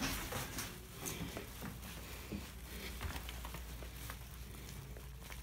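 Faint footsteps and light rustling as people walk, scattered soft taps over a low steady rumble.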